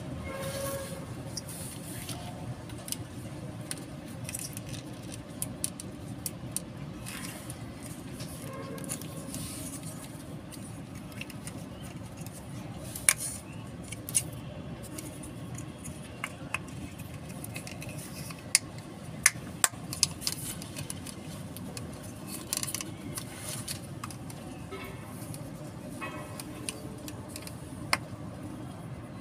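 Scattered small clicks and taps from a plastic three-pin plug top and screwdriver being handled while its wires are fitted to the terminals, a few sharper clicks about halfway through. A steady low background noise runs underneath.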